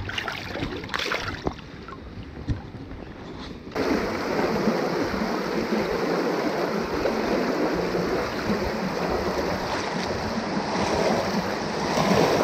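Light water splashing as a pike is released by hand. About four seconds in, this gives way suddenly to the loud, steady rush of fast-flowing river water over rapids.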